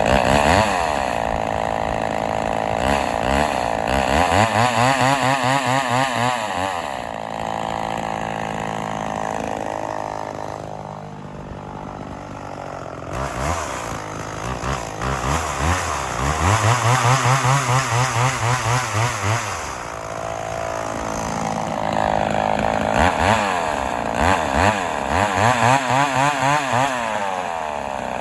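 Vintage Homelite XL-400 two-stroke chainsaw running, its engine speed rising and falling again and again. It drops lower for a few seconds about a third of the way through, then revs back up with a pulsing note.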